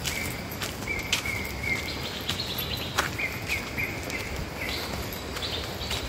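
A few footsteps on a concrete path, loudest about a second and three seconds in, while a bird calls in runs of short notes at one steady pitch, jumping higher for a moment in the middle, over a steady outdoor background hiss.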